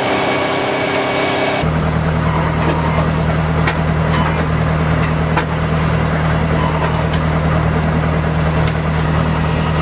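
Steady low drone of a self-propelled howitzer's machinery running, heard inside the turret at the breech, with scattered light clicks and clanks. It begins abruptly about two seconds in, after a dense rushing noise at the outset.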